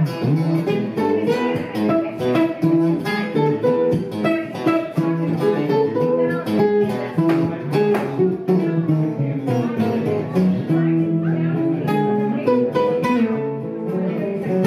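Electric guitar playing an instrumental break of a song: picked single-note lines over held lower notes, continuous throughout.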